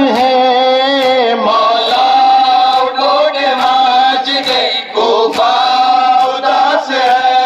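Men's voices chanting a Shia mourning elegy (nauha) in chorus, with sharp chest-beating slaps of matam recurring about once a second.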